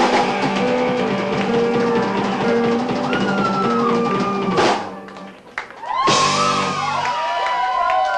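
Rock band playing an instrumental passage on drums and electric guitar. The music breaks off briefly after a hit about five seconds in, then comes back with another loud hit and sliding pitched sounds.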